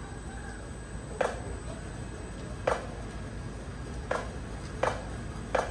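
Drumline stick clicks counting off the band's next entrance: two slow clicks, then four quicker ones about 0.7 s apart, over a low stadium background.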